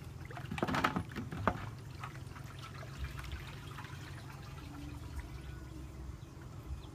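Water splashing and sloshing around a person wading waist-deep and pushing a large floating plastic jug; the loudest splashes come about a second in, then it settles to softer lapping and trickling.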